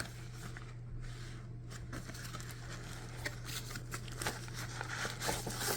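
Faint rustling and light clicks of cardboard and paper packaging being handled as a box is opened, over a steady low hum.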